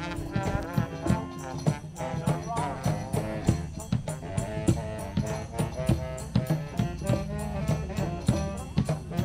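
A small street band of saxophones and a drum playing an upbeat tune over a steady drum beat.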